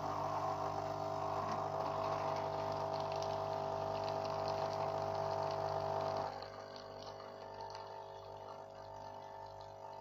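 Saeco Odea Giro espresso machine's pump running with a steady hum while coffee streams from the spout into a paper cup. The sound drops noticeably in level about six seconds in and carries on more quietly.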